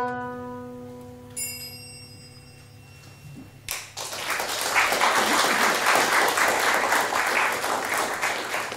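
The final banjo and guitar chord of a song rings out and dies away. About four seconds in, an audience breaks into steady applause, which fades near the end.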